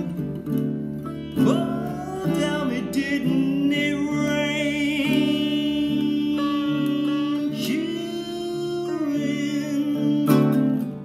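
Sitar and baritone ukulele playing together: the sitar's notes bend up and down in long sliding glides over the ukulele's plucked chords.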